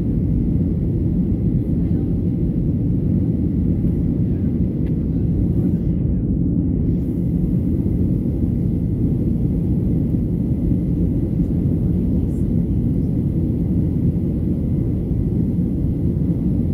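Steady low cabin noise of a Boeing 737-900ER in the climb after takeoff: its CFM56-7B turbofans and the airflow over the fuselage, heard from inside the cabin beside the wing.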